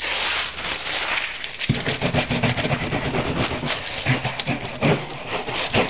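Metallic transfer foil being scrubbed hard with a cloth against a sized surface: rapid, uneven rubbing and crinkling of the foil sheet.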